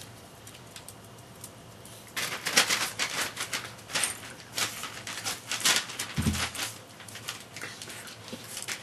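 Small dogs scuffling in play on a tiled floor: claws clicking and scrabbling in irregular flurries that start about two seconds in. A single brief low sound comes a little past the middle.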